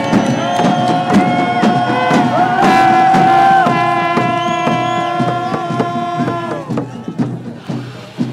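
Hand drums beating steadily while many voices in a crowd hold long notes at several pitches at once. The notes are loudest about three seconds in and fade out around seven seconds, leaving the drumming.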